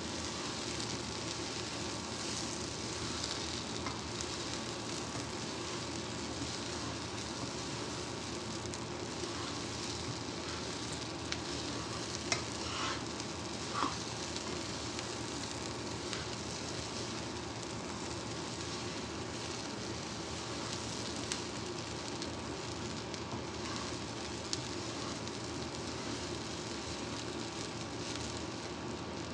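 Rice and chopped vegetables sizzling steadily in a nonstick frying pan while being stirred with a wooden spatula, with a couple of faint scrapes of the spatula about halfway through. The rice is being fried before the water goes in.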